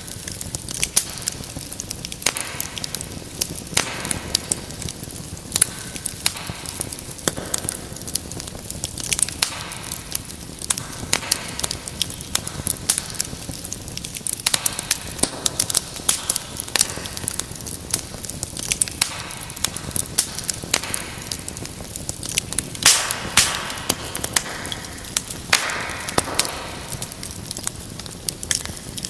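Wood fire crackling with many irregular sharp pops and snaps over a steady soft hiss; a louder cluster of pops with a brief hissing flare comes about 23 seconds in.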